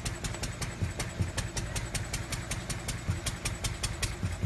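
Lister D single-cylinder stationary engine idling off load, its drive belt removed, with an even beat of about three to four strokes a second.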